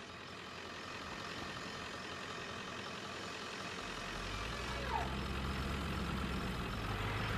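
Engine of a flatbed truck towing an electroconductivity soil-mapping cart, a steady low hum that comes up about halfway through, over a continuous hiss.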